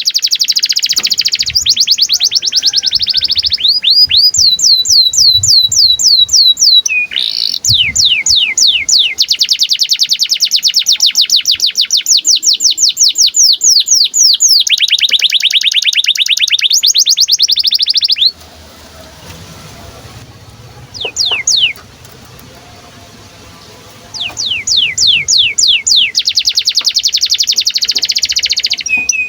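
Domestic canary in breeding condition singing long, fast trills of rapidly repeated sweeping notes. The song breaks off about two-thirds of the way through for a few seconds, with one short burst in the gap, then resumes.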